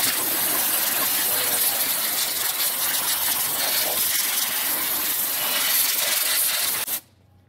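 Water spraying from a hose spray nozzle onto the engine to rinse off spilled coolant: a loud, steady hiss that cuts off suddenly near the end.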